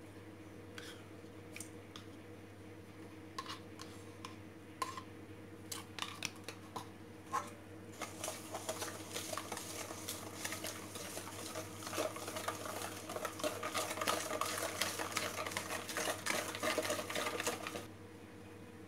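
Wire whisk beating an egg-and-sugar cake batter in a stainless steel bowl: the wires click and scrape fast and continuously against the metal for about ten seconds, then stop shortly before the end. A few separate taps come in the first half, before the whisking starts.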